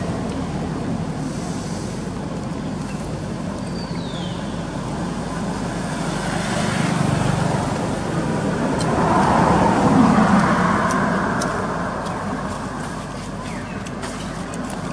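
Road traffic running steadily, with a motor vehicle passing that is loudest about ten seconds in.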